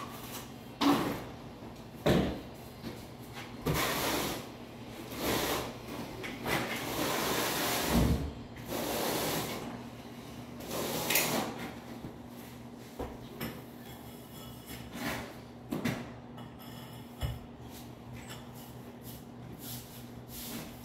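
Notched steel trowel scraping and spreading thinset mortar across a floor for tile, in a run of rough strokes with a few knocks of the trowel. After about twelve seconds the scraping gives way to scattered light clicks over a faint steady hum.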